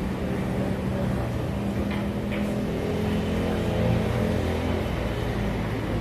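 A steady low mechanical drone, like an engine running, with two faint clicks about two seconds in.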